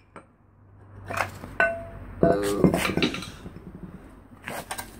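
Steel brake drum and hub parts clanking and clinking as the drum is worked loose and lifted off. There is a brief ringing metallic note about a second and a half in, and a louder clatter just after two seconds.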